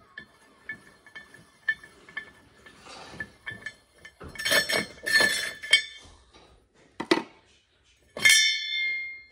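Jet-ski pump impeller being spun off its shaft threads by hand inside the pump housing. The metal parts clink and knock with a ringing tone, and a loud ringing metal clang comes near the end.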